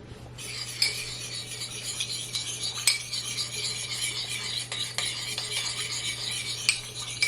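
A metal utensil scraping and stirring against a ceramic dish, with a few sharp clinks.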